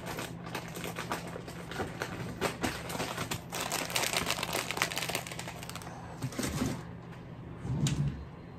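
Soft plastic packet of antibacterial wet wipes crinkling as it is handled, a dense run of crackles loudest about four to five seconds in.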